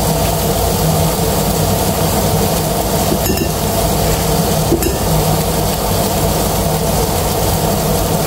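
Beef fillets sizzling in a frying pan on an induction hob: a steady hiss over a low hum. Two light clicks come about three and five seconds in.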